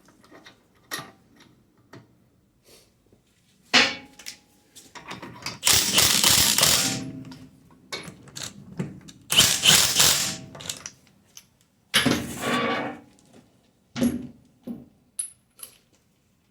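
Wheel bolts being fitted into a car's hub: metallic clicks and knocks of bolts and tools, with three louder stretches of a power tool running bolts in, each a second or two long, about five, nine and twelve seconds in.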